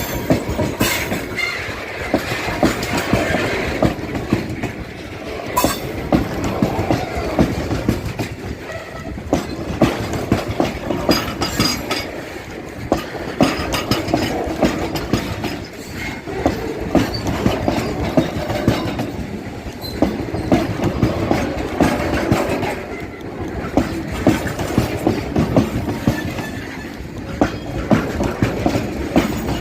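Diesel-hauled Indian train running along the track: a steady rumble with groups of sharp wheel clacks over the rail joints, recurring every few seconds.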